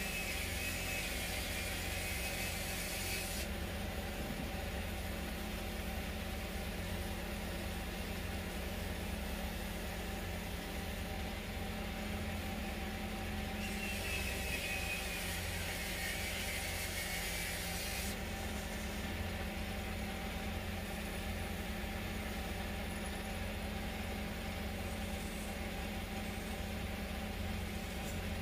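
Wood lathe running with a steady motor hum while a turning tool cuts the spinning teak twice: a hissing scrape for the first three seconds or so, and again for about four seconds in the middle.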